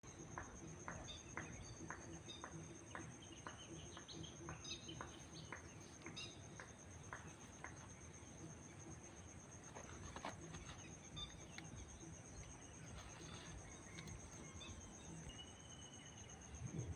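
Faint outdoor ambience dominated by a steady, high insect trill of crickets. A run of evenly spaced short ticks, about two a second, fades out about halfway through, and a single short chirp comes near the end.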